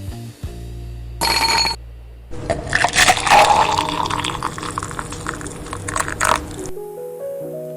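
A rushing-water sound effect, like a toilet flush, running for about four seconds and cutting off abruptly. It comes over steady background music, with a short tonal blip about a second in and a rising run of notes near the end.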